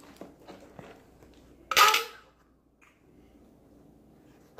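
Coins and small items handled in a homemade cardboard-box toy coin machine: a few light clicks, then one short, loud clatter about two seconds in.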